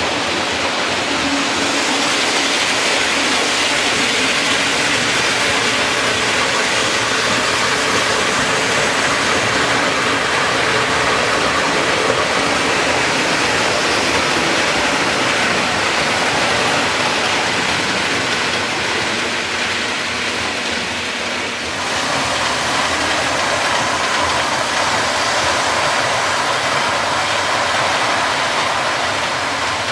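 OO gauge model trains running on the layout: a steady, even running noise of motors and wheels on the track, with a brief dip about two-thirds through.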